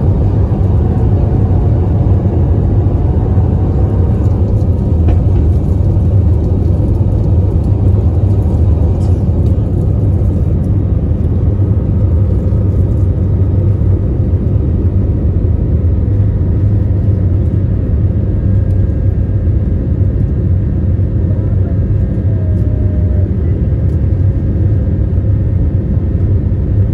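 Jet airliner cabin noise during takeoff and climb: a steady, deep engine and airflow rumble heard from inside the cabin.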